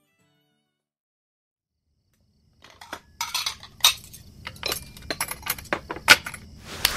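Dishes and utensils clinking and knocking as they are handled: a quick, irregular run of sharp clinks over a low hum, starting after about two and a half seconds of silence.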